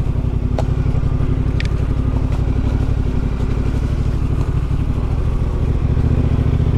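Yamaha Ténéré 700's parallel-twin engine running at low speed, with a few light clicks in the first couple of seconds; the engine note rises a little and gets louder about five seconds in.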